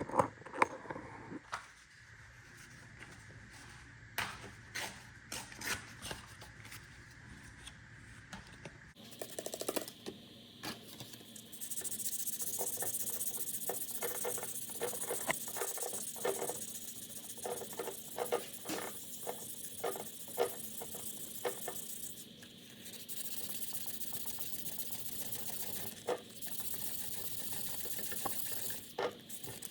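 1200-grit sandpaper rubbing over a JB Weld fill on an outboard propeller shaft's seal surface, in uneven scratching strokes with small clicks. About nine seconds in, a steady hiss joins the scratching.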